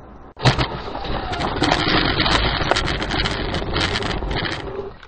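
Vehicle crash just ahead, picked up by a dashcam inside a following car: a sudden loud bang about half a second in, then several seconds of rumbling noise peppered with clicks and knocks as dust and debris fly, tailing off near the end.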